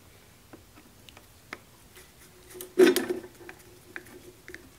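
Screwdriver turning a small screw out of the old cast-iron lathe headstock: light clicks and ticks of the tip in the slot, with a louder grating noise a little past halfway as the screw gives.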